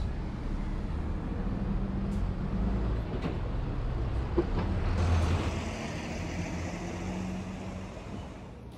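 City bus engine running close by amid street traffic. It swells about halfway through, then fades toward the end.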